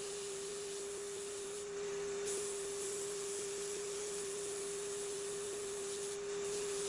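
Mini lathe motor running with a steady whine while 80-grit sandpaper is held against a spinning cork grip, giving a steady hiss of sanding. The hiss gets a little louder about two seconds in.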